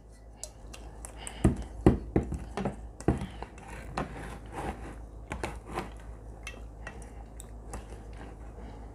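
Quail pieces being worked by hand through beaten egg in a mixing bowl for an egg wash: irregular clinks and knocks against the bowl with wet sloshing, the loudest two knocks a little under two seconds in.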